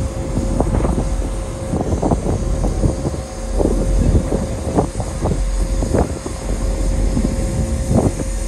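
Wind gusting irregularly on the microphone on a ferry's open deck, over the ship's steady low engine rumble and a thin steady hum.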